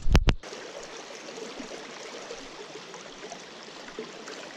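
Small trout stream running high and fast after rain, a steady rush of water over riffles. Two sharp knocks come in the first half second.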